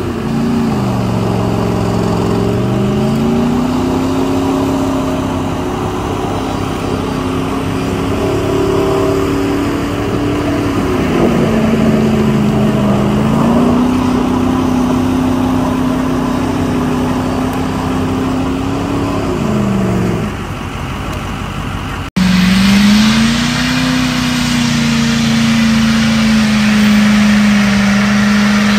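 Pickup truck's engine held at high revs as it drives hard across a wet field, the pitch dropping and climbing back a few times. About 22 seconds in there is a sudden break, then another pickup's engine runs at steady high revs in a burnout, with the hiss of spinning tires.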